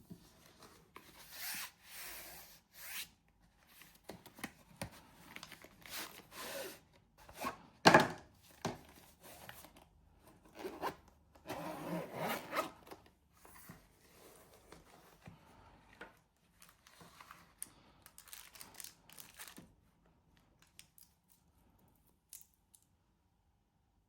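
Close-up handling of a wristwatch: irregular bursts of rubbing and scraping, with one sharp knock about eight seconds in, thinning out to a few faint clicks near the end.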